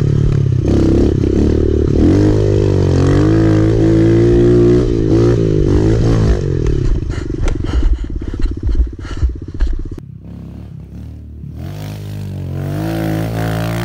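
Small Kawasaki four-stroke mini dirt bike heard close up on the track, its revs rising and falling for the first several seconds, then dropping off with clattering knocks around the middle. About ten seconds in the bike is heard from beside the track instead, getting louder as it approaches.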